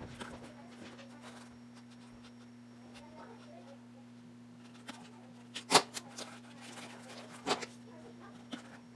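Small scissors snipping EVA craft foam: a few sharp snips, the loudest about halfway through and another under two seconds later, over a steady low hum.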